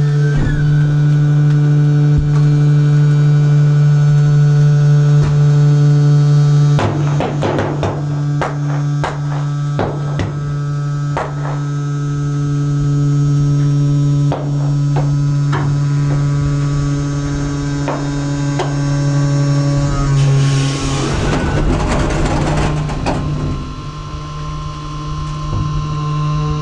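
Compactor container's hydraulic drive running with a steady, loud hum while the press squeezes garbage bags. Clusters of sharp cracks and snaps come about 7 seconds in and again near 11 seconds, and a denser crunching burst follows about 20 seconds in, after which the hum shifts.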